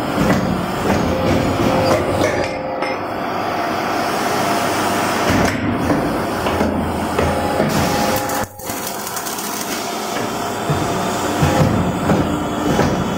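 Double J wire hook bending and welding machine running, a continuous dense mechanical clatter with knocks from its forming tooling. The sound briefly drops out about eight and a half seconds in.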